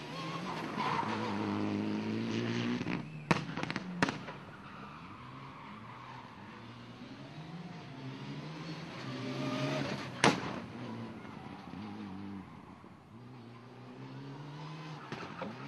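Rally car engine revving hard, its pitch rising and falling through the gears as it drives past. A cluster of sharp bangs about three to four seconds in and a single louder bang about ten seconds in sound like exhaust backfires.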